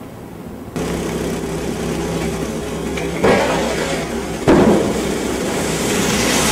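A small engine running steadily over the rush of spillway whitewater, cutting in suddenly just under a second in. Two sharp impacts land about a second apart in the middle.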